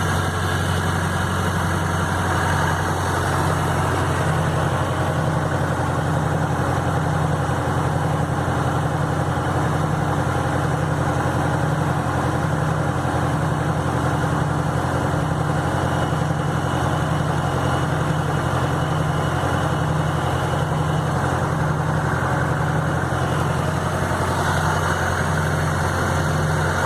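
Tractor engine running steadily at a constant speed, a low, even drone with no revving or pauses.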